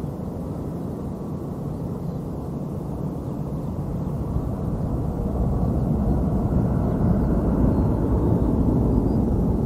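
Boeing 757 twin-engine jet rumbling, growing steadily louder over several seconds as the aircraft comes closer.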